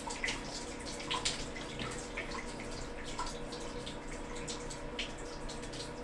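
Water dripping and splashing into a sink in irregular small drops and spatters, over a steady hum.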